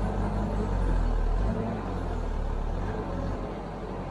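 Backhoe loader's diesel engine running close by, a deep steady rumble that eases off about a second and a half in.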